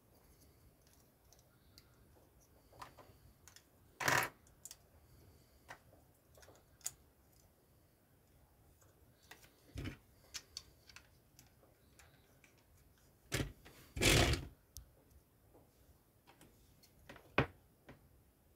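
Plastic LEGO bricks clicking and clacking as they are handled and pressed together by hand, in scattered irregular clicks with louder clacks about four seconds in and again around fourteen seconds.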